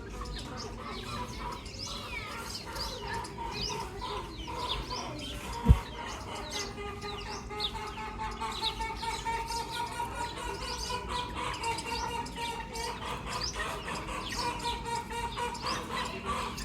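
A flock of chicks peeping continuously, many short high falling chirps overlapping. A single sharp thump about six seconds in is the loudest sound.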